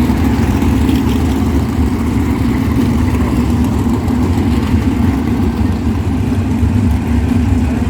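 The V8 engines of a pack of 360 sprint cars running together at a steady, even pitch with no big revs, as when the field rolls slowly before a restart.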